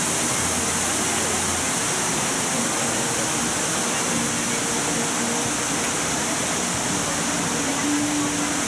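Steady rush of water from a broad artificial waterfall pouring over a wall into a pond.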